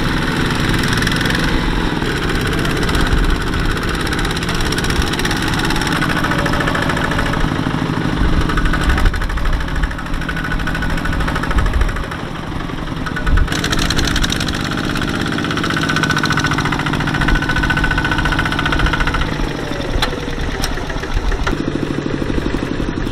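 Single-cylinder diesel engines of Kubota two-wheel walking tractors running hard under load as their wheels churn through deep mud, one tractor hauling another out of the mire. The engine sound changes abruptly a few times.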